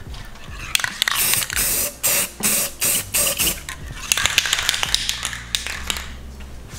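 Aerosol spray paint can hissing in a run of short bursts, then a longer spray about four seconds in, with a few clicks in between.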